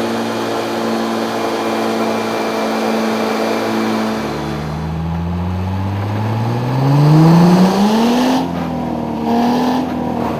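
Car engine running steadily, then revving up in one smooth rise over about four seconds and holding at the higher speed before easing off near the end.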